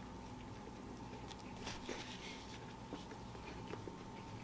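Biting into a crispy fried chicken sandwich and chewing it, with faint scattered crunching crackles from the fried coating. A faint steady hum runs underneath.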